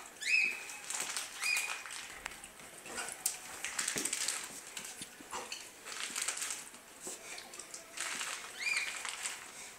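A Doberman being hand-fed frankfurters: chewing and smacking, with the plastic sausage packet crinkling in the man's hands and a few short high-pitched whines, two near the start and more near the end.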